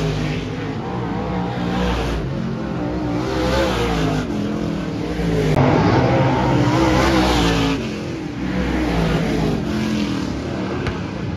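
Dirt-track race cars running at speed around the oval, several engines at once, their pitch rising and falling as the cars pass and lift for the turns. They are loudest a little past the middle.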